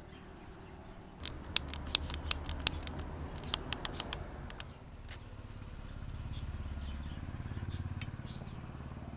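Bicycle gear shifter and gear cable being worked while the cable is fitted, giving about a dozen sharp metallic clicks, four of them evenly spaced. A low steady rumble follows in the second half.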